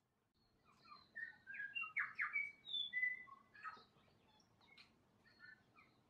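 New Zealand bellbird singing: a phrase of clear whistled notes with short, sharp clicking calls mixed in. It is loudest in the middle and trails off into fainter, scattered notes.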